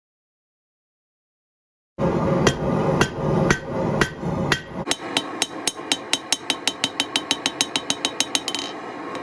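About two seconds of dead silence, then a hammer striking steel on an anvil: a few blows over a loud low rumble, then a fast, even run of ringing blows, about seven a second.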